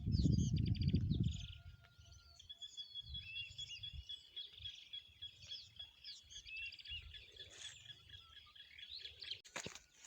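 Several wild birds chirping and calling, with one long high trill running through the middle. A loud low rumble fills the first second and a half, and faint low thumps follow.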